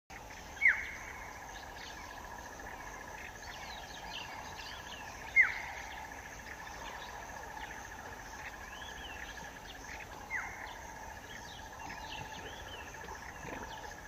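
A steady, fast-pulsing insect trill, cricket-like, runs throughout. About every five seconds a loud, sharp call note drops quickly in pitch, and small bird chirps come and go in between.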